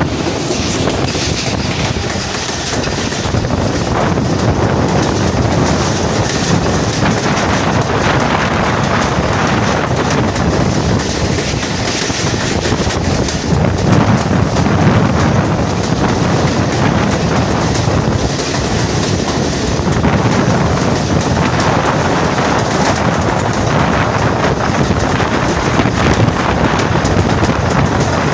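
Pakistan Railways Rehman Baba Express passenger train running at speed: steady rumble and rattle of its coach wheels on the rails.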